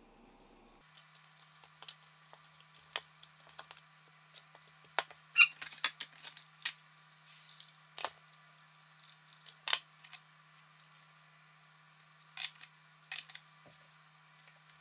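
Irregular light clicks and taps of small hard objects, plastic parts and tools, being handled on a workbench, over a faint steady hum that starts about a second in.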